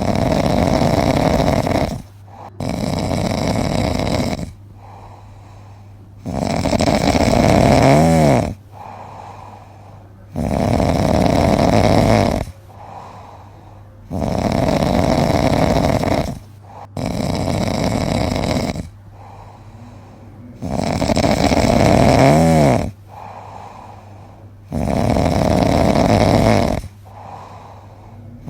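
A sleeping cat snoring in long, regular snores about every three to four seconds, with quieter breathing between. Twice, a snore ends in a short whistle that rises and falls in pitch.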